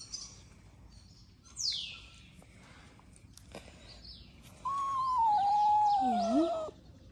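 Ginger-and-white kitten giving one long cry of about two seconds near the end, falling in pitch, while eye drops are put into its sore eye. About a second and a half in there is a short high chirp.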